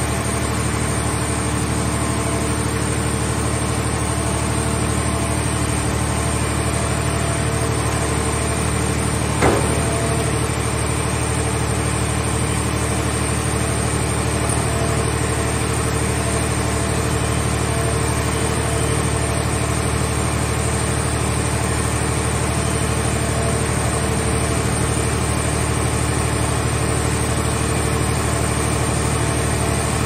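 Steady drone of heavy hydraulic machinery running as a grapple arm swings a scrap car shell into a car baler's chamber, with one sharp knock about nine and a half seconds in.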